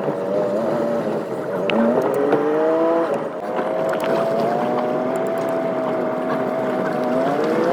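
1971 Chevrolet C10 pickup's engine pulling away under load. Its revs climb, drop at a gear change about three seconds in, hold steady, then climb again near the end.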